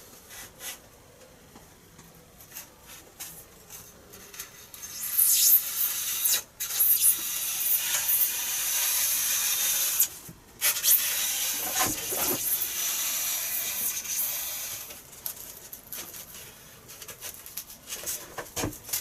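A fresh blade cutting a long slot through foam board for a carbon fibre spar. It gives a steady scraping hiss that starts about five seconds in, breaks off briefly twice and dies away after about ten seconds, with light handling ticks before and after.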